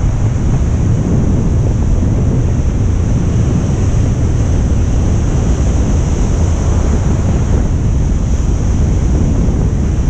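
Ocean surf breaking and foaming over a shallow reef, with heavy wind buffeting the microphone; a steady, loud rush.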